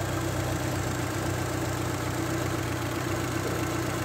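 Car engine idling steadily with its electrical loads switched off, the alternator charging the battery at about 14.2 volts.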